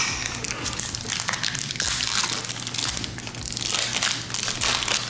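Foil Pokémon card booster pack wrappers crinkling and crackling in the hands as they are handled and torn open.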